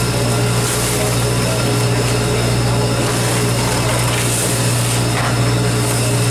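Large fishing party boat's engines running steadily under way: a deep, even drone with a steady hiss above it.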